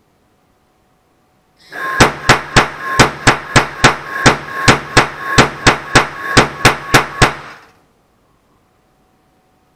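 Small propane noise cannon, spark-ignited through a brass initiator ball into a spiral-wrapped barrel, firing a rapid string of about 17 sharp bangs at roughly three a second for about five seconds, with a hiss between shots. The gas is regulated to about 4.5 bar.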